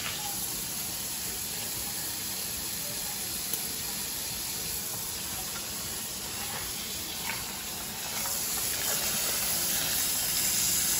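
Kitchen faucet running a steady stream of water onto crabs and ice in a plastic basin in the sink, the splashing a little louder about eight seconds in.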